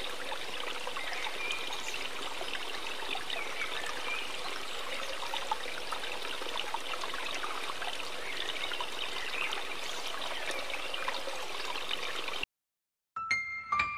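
Steady running water, like a small stream, that cuts off suddenly about a second and a half before the end; a few piano notes start just after.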